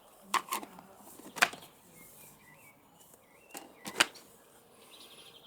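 Sharp clicks and knocks of electric meat grinder parts being handled and set down, a few small ones with two louder knocks about a second and a half in and about four seconds in.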